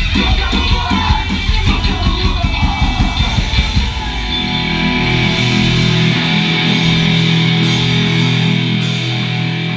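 Hardcore punk band playing live: fast drums under distorted electric guitars and bass. About four seconds in, the drums stop and the guitars and bass hold a final ringing chord to end the song.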